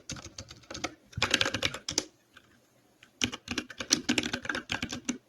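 Typing on a computer keyboard: quick runs of keystrokes in three bursts, with short pauses in between.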